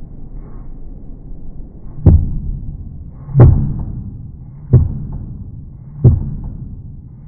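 Kitchen knife slicing through mushrooms and striking a plastic cutting board: four dull knocks at a slow, even pace about 1.3 seconds apart, each fading briefly, over a low steady hum.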